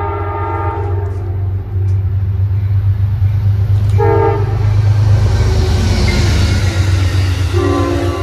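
An Amtrak diesel passenger locomotive sounding its multi-chime air horn as it approaches and passes at speed: a long blast ending about a second in, a short blast about four seconds in, and another long blast starting near the end, the long-long-short-long grade-crossing signal. Under the horn runs a steady low engine rumble, and the rush of wheels and cars grows louder as the train goes by.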